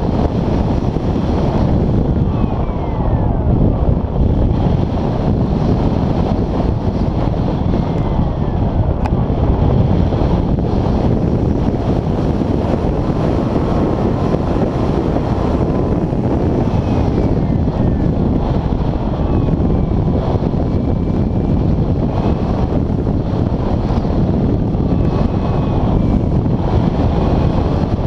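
Steady rush of airflow over the microphone of a camera riding on an RC glider in flight, with faint whistles that slide up and down in pitch.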